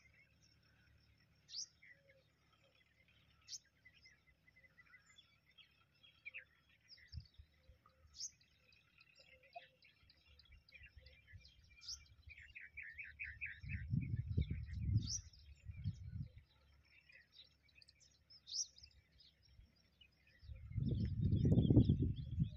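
Several wild birds calling in open countryside: a short high chirp repeated every couple of seconds, scattered twittering, and a quick trill of about eight notes midway. A low rumble on the microphone comes in briefly midway and again, louder, near the end.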